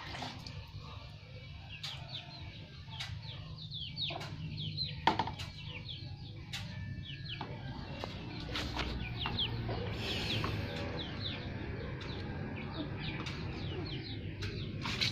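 Chickens peeping and clucking, many short high falling chirps, busiest in the middle. Water is poured and splashed in a plastic basin, with a few sharp knocks.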